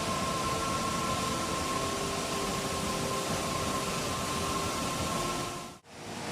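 Rushing stream water, a steady loud rush with a few faint steady tones above it; it fades out abruptly near the end and comes back.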